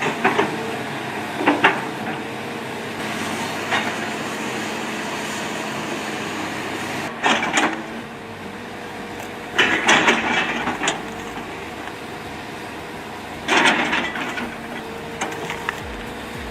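John Deere 270D excavator running steadily with a constant engine hum while it pulls pine stumps. It is broken by three louder, rough cracking bursts about 7, 10 and 13.5 seconds in.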